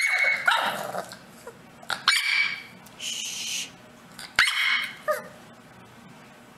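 A dog barking and yipping in four short bursts within about five seconds, some calls sliding in pitch like a whine.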